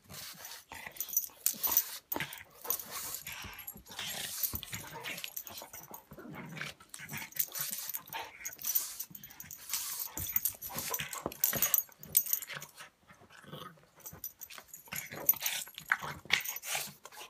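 A pug and an English mastiff play-fighting, growling in irregular bursts with scuffling against the couch, easing off briefly about two-thirds of the way through.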